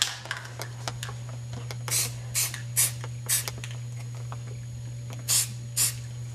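Aerosol spray-paint can giving six short squirts of spray, four in quick succession and then two more near the end, as paint is dabbed onto an airsoft gun through a leaf stencil.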